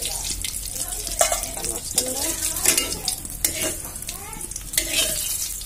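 Rohu fish steaks sizzling in hot oil in an aluminium karahi while a metal spatula turns them and scrapes across the pan in several sharp strokes, about a second apart.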